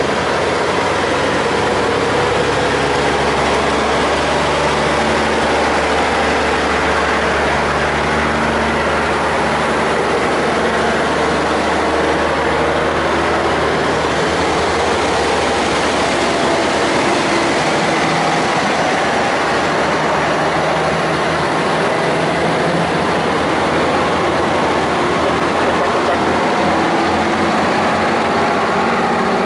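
Vintage Brockway trucks driving past one after another, their heavy truck engines running steadily, with the pitch shifting as each truck goes by.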